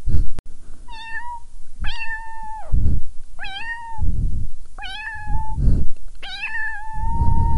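Kitten meowing again and again, five high meows about a second and a half apart, with low thuds between them.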